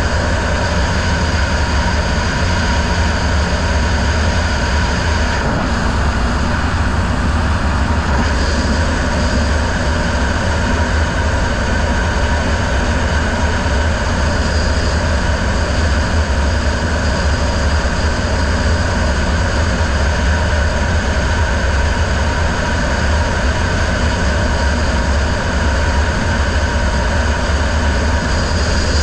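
Outboard motor of a racing riverboat running steadily at speed, with wind rushing over the microphone and a strong low rumble.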